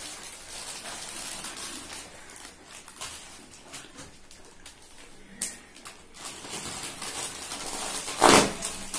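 Crisp packets crinkling and rustling as they are opened and handled, in a run of short crackles, with one loud crackle about eight seconds in.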